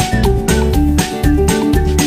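Background music with a steady beat, a bass line and short melody notes.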